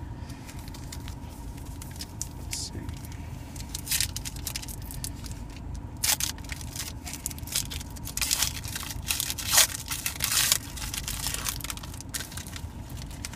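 Foil wrapper of a trading-card pack torn open and crinkled by hand: irregular sharp crackles and tears, coming in bunches and loudest past the middle, over a steady low hum.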